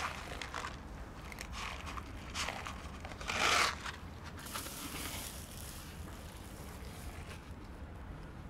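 Dry cat kibble crunching and rattling: pellets poured from a container onto a plastic plate near the start, and cats chewing the dry food. Irregular short crackly bursts, the loudest lasting about half a second around three and a half seconds in.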